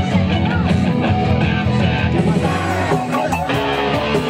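Rock music played by a band, with electric guitar.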